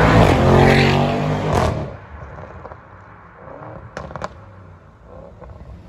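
Audi RS6 Avant's twin-turbo V8 through a Milltek exhaust, loud as it drives past, its pitch falling as it pulls away and fades within about two seconds. About four seconds in come two sharp cracks.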